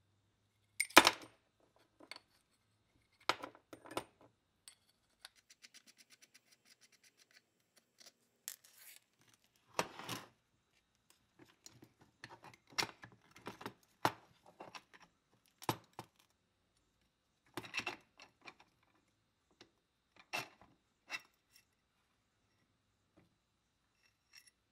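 Metal parts of a 1930s Syntron electric hammer handled and fitted together on a workbench: scattered clinks, knocks and scrapes, the loudest about a second in, with a quick run of fine ticks around six seconds.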